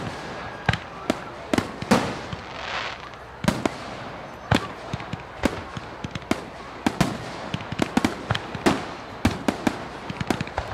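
Fireworks display: a rapid, uneven run of sharp bangs from bursting shells, several a second at times, with a hiss about two to three seconds in.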